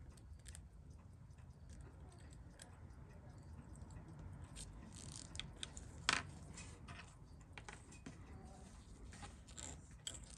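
Faint, scattered clicks and taps of small metal watchmaking tools on watch movement parts, with one sharper click about six seconds in, over a low steady hum.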